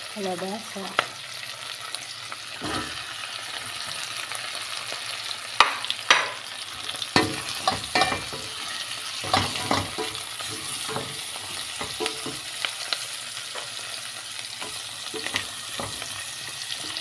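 Pork, onion, garlic and tomato sizzling steadily in a metal pot as cubes of squash are tipped in and stirred with a wooden spatula, with a run of sharp knocks and clatters against the pot in the middle.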